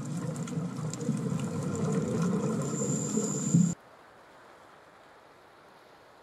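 Low, even noise with scattered clicks that cuts off suddenly about four seconds in, leaving only faint hiss.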